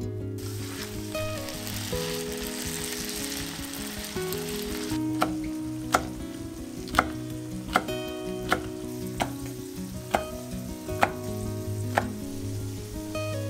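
A chef's knife slicing long green peppers into rings on a wooden cutting board: sharp knocks of the blade hitting the board, about one a second, starting about five seconds in. Before that a soft, even hiss, and light background music runs throughout.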